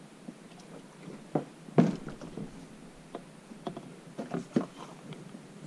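Irregular light knocks and bumps of a plastic kayak and its paddle against a wooden dock while coming alongside, the loudest about two seconds in and a quick cluster a little later.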